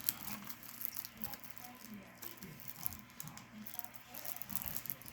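Fingernails picking and scratching at the plastic shrink-wrap of a CD case, making irregular small clicks, scratches and crinkles as the wrap resists being opened by hand.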